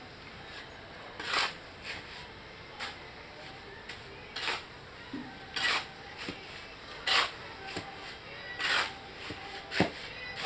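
A man working with his hands at something low in front of him: short, noisy scraping strokes repeated roughly every second and a half, with lighter strokes in between.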